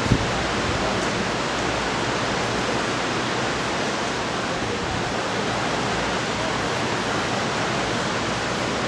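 Many pedestal electric fans running together: a steady, even rush of moving air. A single click comes just after the start.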